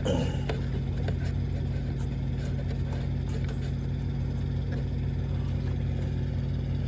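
Diesel truck engine idling steadily, with a few faint clicks over it.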